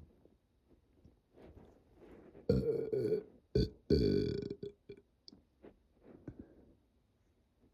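A person burping three times in quick succession: a long belch about two and a half seconds in, a short one, then another longer one.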